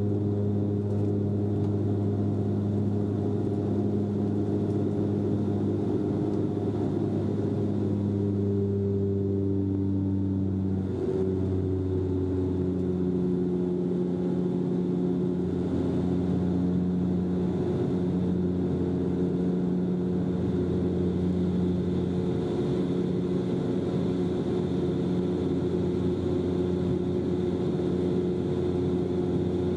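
Bombardier Dash-8 Q400 turboprop heard from inside the cabin in the climb: a steady propeller drone with a low hum over engine and air rush. About eleven seconds in the drone steps down slightly in pitch, the sign of the propellers being set back from take-off speed to climb speed.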